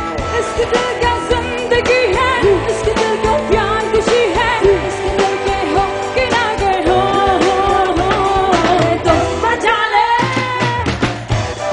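Live band music: a singer carries an ornamented melody with wavering, bending notes over steady drum beats and a bass line.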